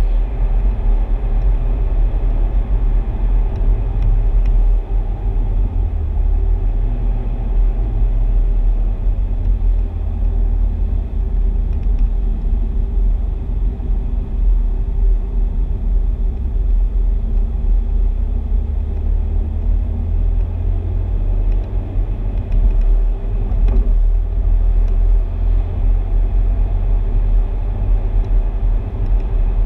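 Steady low rumble of a car driving along at road speed, engine and tyre noise heard from inside the cabin.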